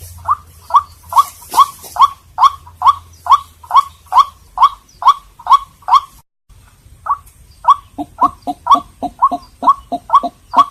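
White-breasted waterhen calling: a monotonous run of sharp, repeated notes, about three a second. After a short break about six seconds in, the notes come faster, with a lower note alternating between the higher ones.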